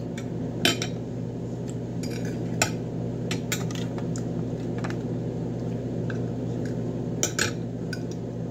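Eating at a table: scattered light clicks and taps of tableware and food being handled, with chewing close to the microphone, over a steady low hum.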